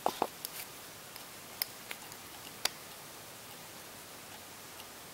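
A thin metal tool clicking and scraping against the aluminium base housing of an LED bulb as it is pried at: two knocks close together at the start, then a few single sharp ticks over the next two seconds.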